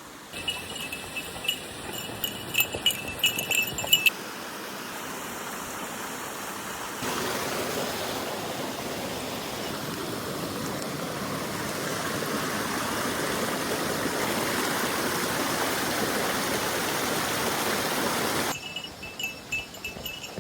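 A small metal bell jingling repeatedly for the first few seconds. After a cut comes a steady rush of flowing mountain water, and the bell jingles again near the end.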